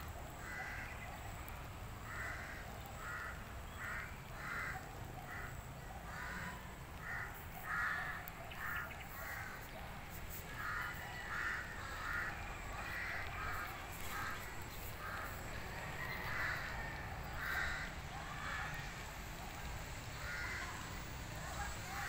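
A bird calling over and over in short, harsh notes, about two a second, with brief pauses between runs.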